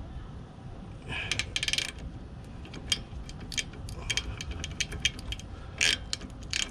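Short metallic clicks and clinks of a hand ratchet and tools working the oil drain plug back into the generator's oil pan, with a few louder ringing metal clinks.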